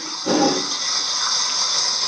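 Rain sound effect: a steady hiss of falling rain, with a brief lower swell just after the start.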